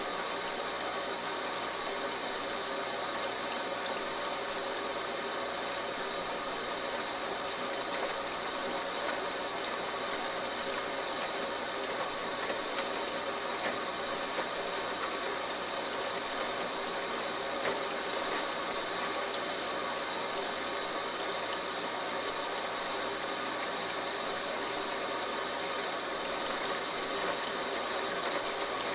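Front-loading washing machine running: a steady mechanical whir and hum, with a few faint knocks here and there.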